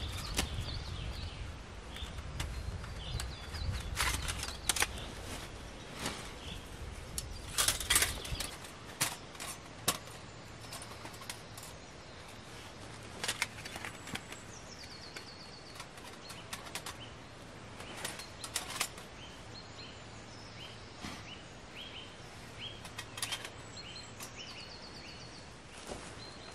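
Dry leaves rustling and gear being handled, in scattered sharp crackles and clicks, with songbirds chirping and trilling in the background. A low wind rumble on the microphone stops about eight seconds in.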